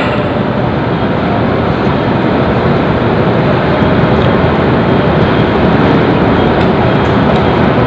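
Steady, loud rushing noise with a low rumble and no clear pitch.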